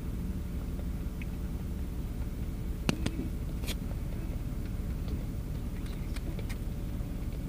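Steady low road and engine noise inside a moving car's cabin, with a few sharp clicks about three seconds in.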